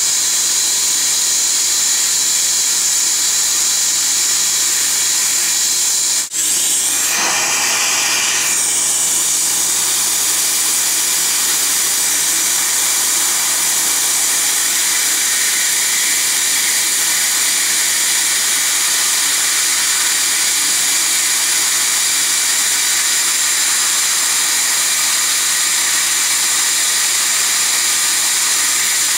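Steady loud hiss and whir of dental equipment during an Er,Cr:YSGG water laser (Waterlase iPlus) procedure: the laser's air-water spray with suction. There is a brief break about six seconds in.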